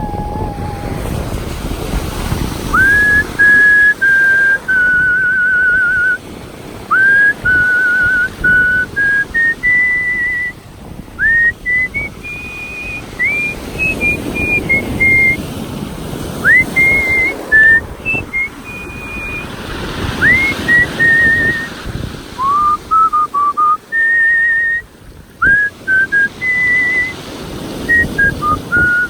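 A man whistling a slow melody by mouth in the style of artistic whistling, one clear tone at a time. Held notes waver with vibrato, and several notes are entered with a quick upward swoop.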